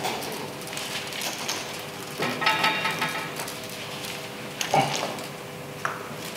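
Hands fitting a rubber gas hose and metal hose clamps onto a gas connection: rustling handling noise with a few light metallic clinks, a ringing cluster about two and a half seconds in and a louder knock near five seconds.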